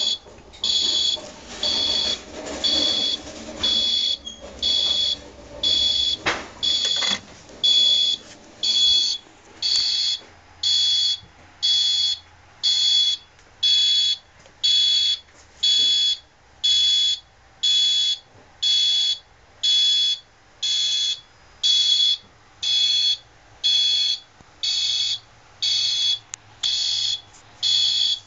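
Fire alarm system's evacuation sounder going off after a manual call point is activated: a high-pitched pulsed tone, about one beep a second, repeating steadily.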